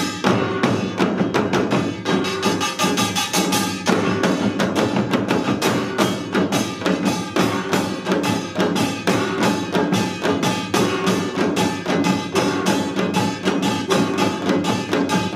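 Utdari-style samul nori ensemble playing seated: janggu hourglass drums and buk barrel drums under ringing kkwaenggwari small gongs, in a dense, fast, unbroken rhythm.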